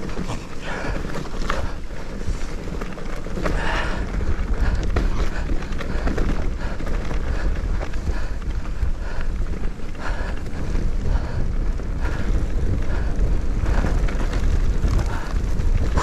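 Wind rumbling on the microphone as a Cube Stereo Hybrid 140 electric mountain bike rolls downhill over a rough, stony dirt-and-grass track, with scattered knocks and rattles from the bike jolting over bumps.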